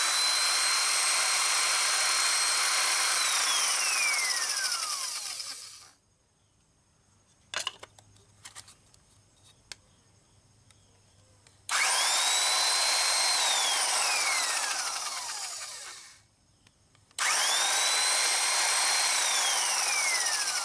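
Porter-Cable electric drill run unloaded three times, its motor spinning up at once to a steady high whine, then winding down with falling pitch as the trigger is let go. It is being test-run after its switch contacts were cleaned, and it runs each time. A few faint clicks come in the pause after the first run.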